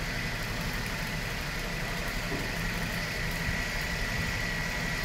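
An engine idling: a steady low hum with a thin, steady high whine above it.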